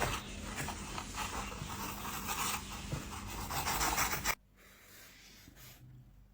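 Dense, rapid scratching and rustling from a hamster, made of many small scratchy clicks, for about four seconds. It cuts off suddenly, leaving only a faint low hum.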